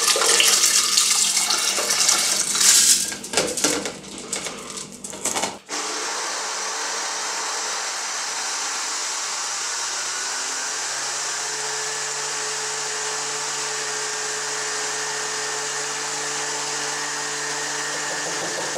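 Soaked broken rice and water poured splashing into a plastic blender jug for about five and a half seconds. Then the countertop blender runs steadily at an even pitch, grinding the rice into rice milk.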